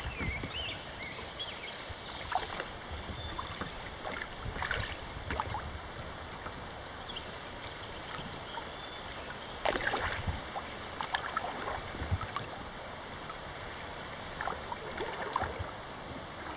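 Kayak paddle strokes dipping and splashing a few times at irregular intervals, with water lapping at the hull over the steady rush of a moving river.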